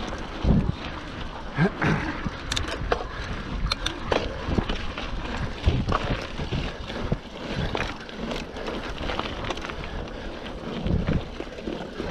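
Mountain bike ridden over a rough trail: continuous tyre and frame rattle, broken by irregular knocks from bumps and several heavier thumps.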